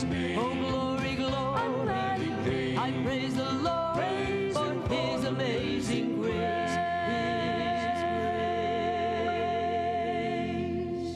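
Gospel song with a singer's wavering voice over band backing. Sharp drum and cymbal strokes sound through the first half, then the song ends on a long held note over a sustained chord.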